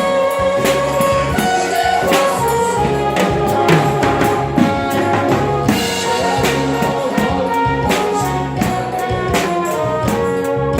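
Music with a drum kit keeping a steady beat under sustained brass-like melody lines.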